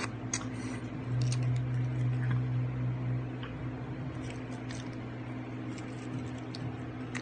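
Close-miked eating sounds of someone eating balut: soft wet squishing and small clicks, over a steady low hum.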